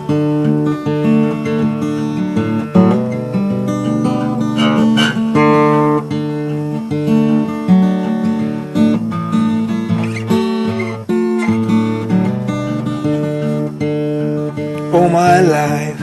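Acoustic guitar playing a blues intro in an even rhythm, a steady run of plucked notes and chords. A voice starts singing near the end.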